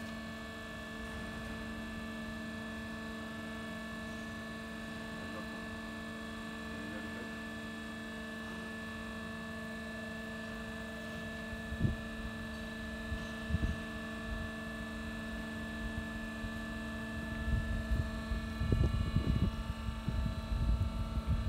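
The container lid's electric hydraulic power unit running with a steady, even hum as it raises the hinged roof lid. A few short knocks come past the middle, and irregular low rumbling starts in the last few seconds.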